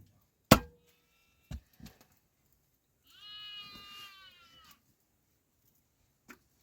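A sheep bleats once, a drawn-out call of about a second and a half in the second half. Before it come a sharp knock about half a second in, the loudest sound, and two softer knocks a second later.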